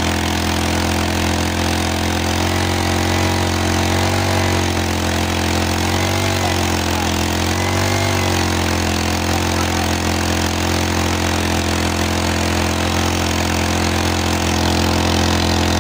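An engine running steadily at an even speed, its pitch wavering slightly a few times around the middle.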